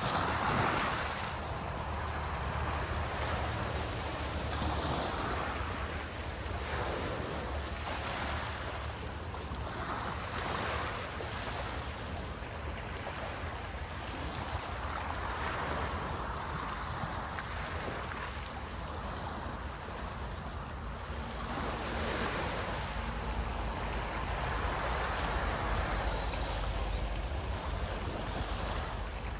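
Small waves washing onto a shore, the hiss swelling and easing every few seconds, with a low rumble of wind on the microphone.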